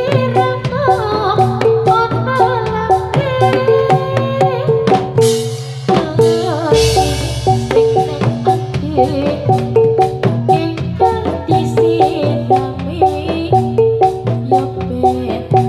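Loud Javanese gamelan music accompanying jathilan dancing: metallophones repeat a fixed note pattern over steady, rapid drumming. A gliding melody line runs over the first five seconds, and a bright crash-like burst comes about six to seven seconds in.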